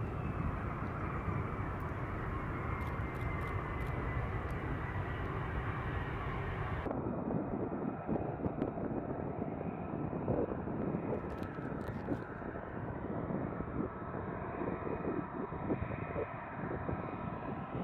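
F-35B Lightning II jet engines running loud, with a high whine that slowly falls in pitch as one jet takes off. About seven seconds in it cuts to a duller, rougher jet engine noise from F-35Bs taxiing.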